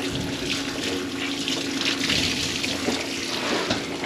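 Kitchen faucet running water into the sink, a steady splashing rush with a low steady hum underneath; the drain line has just been cleared of a grease clog.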